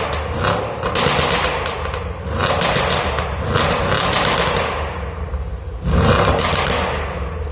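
Stage 2 tuned Mercedes S550 V8 exhaust crackling and popping in repeated bursts of rapid pops over the engine's low rumble.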